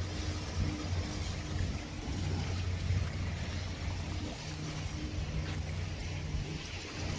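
A motorboat engine running with a steady low hum, over a continuous rushing hiss.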